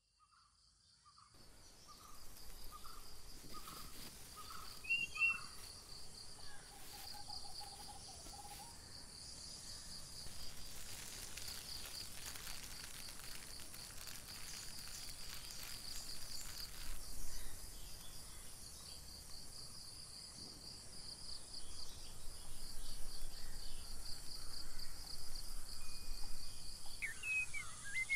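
Woodland ambience fading in from silence: an insect trills steadily in fast, high pulses. A bird gives a run of short repeated notes in the first few seconds, and there are a few brief chirps.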